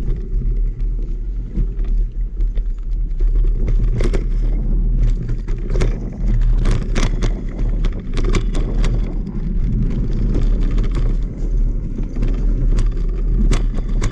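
Mountain bike riding over rough trail: a steady low wind rumble on the microphone, with frequent sharp clicks and rattles from the bike, thickest from about six seconds in and again near the end.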